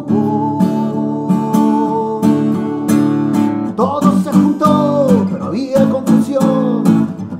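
Acoustic guitar strummed in a steady rhythm under a man's singing voice. He holds one long note, then from about four seconds in sings bending, sliding phrases.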